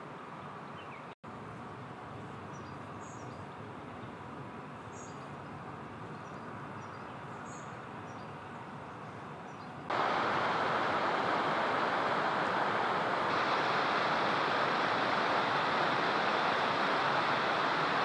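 Steady outdoor background noise with a few short, faint high bird chirps. About ten seconds in it switches suddenly to a much louder, steady rushing noise, which rises a step a few seconds later.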